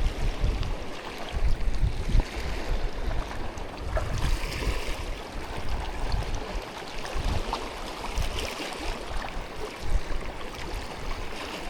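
Wind gusting on the microphone over shallow sea water lapping and trickling across a reef flat.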